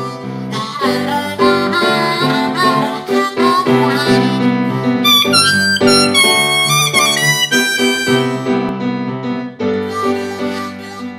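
Instrumental background music: a melody over held chords, with a run of high, bending notes around the middle.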